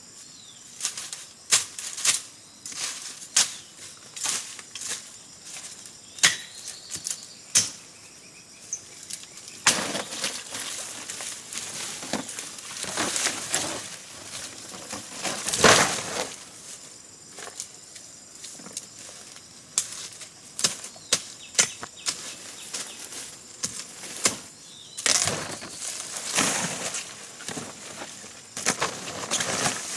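Thick giant taro stems being handled and dragged over dry leaf litter and brush. It is rustling and scraping with many sharp cracks and snaps, and two longer stretches of heavier rustling, one in the middle and one near the end.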